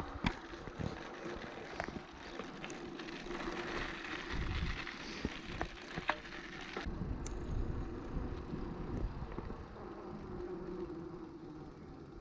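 Riding noise from a bicycle: low rumbling swells of wind on the microphone over a steady rush, with scattered sharp clicks and rattles from the bike.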